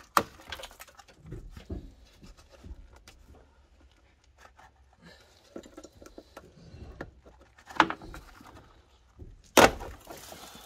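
Hand and tool work on a car's plastic wheel-arch liner and its push clips: scattered clicks, scrapes and rattles, with sharp knocks just after the start, about 8 s in, and the loudest about 9.5 s in.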